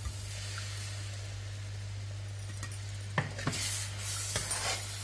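Thick cashew paste pours from a steel mixer-grinder jar into a pan of simmering mushroom gravy, with a soft sizzle. From about three seconds in a metal spoon stirs and clicks against the pan, over a steady low hum.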